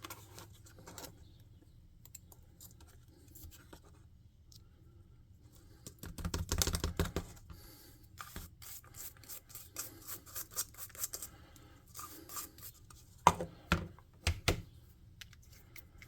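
Small objects being handled by hand: a rustling scratch about six seconds in, then a run of light clicks and taps, and two sharp knocks near the end.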